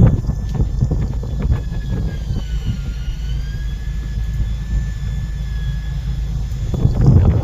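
Fishing boat's engine running with a steady low drone, a thin high whine over it that dips briefly in pitch about two to three seconds in, and a few knocks.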